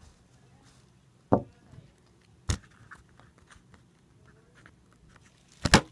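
Sharp knocks and thumps from a phone being handled close to its microphone: one about a second and a half in, another about a second later, and a louder double knock near the end.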